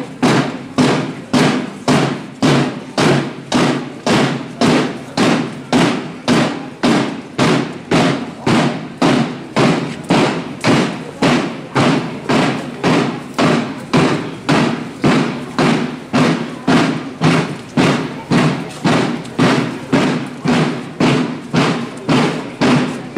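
A drum beaten in a steady, even rhythm, about two strokes a second, each stroke a thud that dies away before the next.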